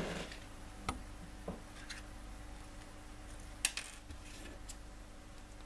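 Light clicks and ticks of a small metal SIM card tray and memory card being handled by fingers, several separate clicks, the sharpest about three and a half seconds in.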